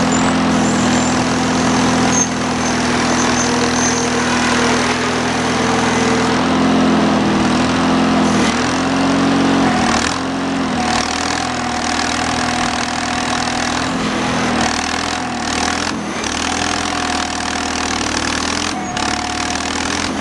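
Wisconsin THD air-cooled gas engine running the roofing conveyor, steady at first. About halfway through, its speed dips and picks up again several times. A faint high whine comes and goes over the second half.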